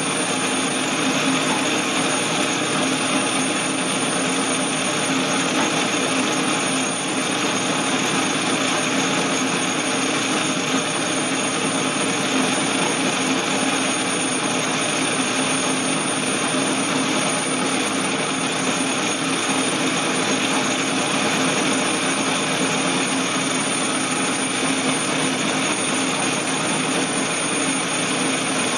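Atlas-built Craftsman metal lathe running steadily under a turning cut, its motor and gearing giving an even mechanical hum while the tool travels along a bar held between centres.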